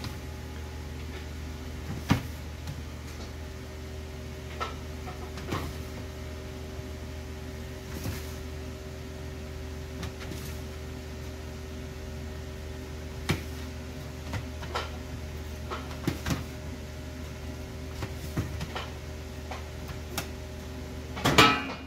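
A metal spatula spreading sauce over a pizza base on a stainless steel tray, with scattered clicks and knocks as the blade taps and scrapes the tray, a sharper cluster near the end. A steady low hum runs underneath.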